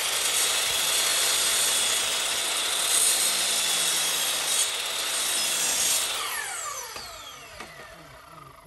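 Electric power saw running as it cuts through wood, a steady high whine over the cutting noise. About six seconds in, the cut ends and the motor winds down, its whine falling in pitch as it fades.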